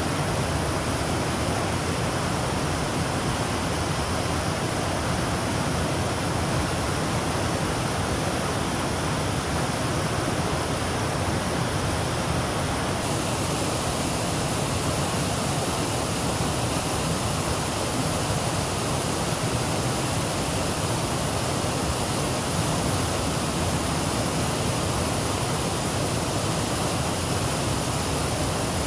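Steady rush of creek water running close by, with no breaks, its hiss changing slightly about thirteen seconds in.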